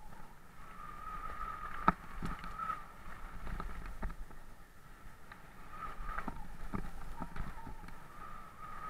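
Mountain bike riding fast down a gravel trail: rolling rumble from the tyres, with rattles and knocks over bumps, the sharpest about two seconds in. A buzzing rises and fades twice.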